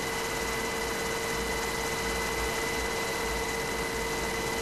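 Steady cabin noise of an HH-60G Pave Hawk helicopter in flight: an even rushing hiss with a constant whine held on a few fixed pitches.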